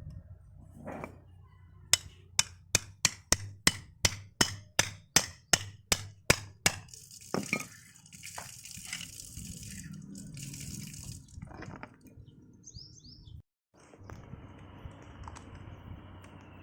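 A hammer striking metal in a quick run of about fourteen blows, roughly three a second, each ringing briefly. This is typical of tapping a rotavator oil seal or bearing into place. After the blows come softer scraping and handling sounds.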